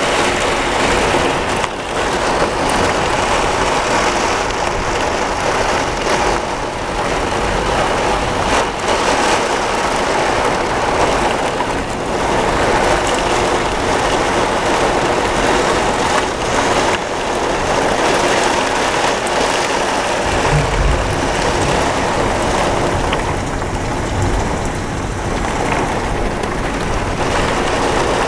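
Heavy rain pouring steadily in a thunderstorm. A brief low rumble comes about twenty seconds in.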